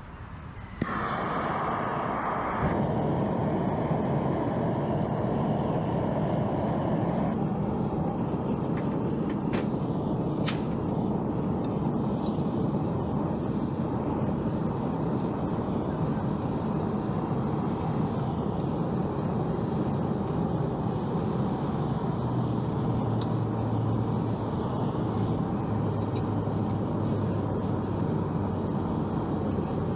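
A blacksmith's forge fired up and running: a steady rushing noise starts suddenly about a second in and holds even, with a few faint clicks and a low hum joining later.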